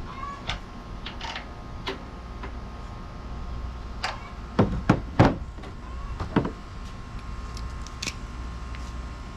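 Scattered clicks and knocks of tools and metal parts being handled, with four louder knocks close together about halfway through, over a low steady hum.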